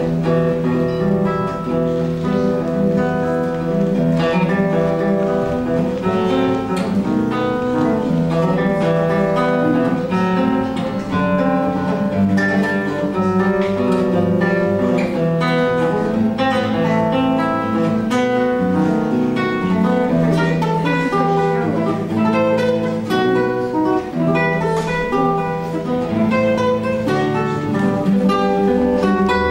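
A solo instrumental piece played on a plucked string instrument, with a continuous flow of picked notes over held bass notes.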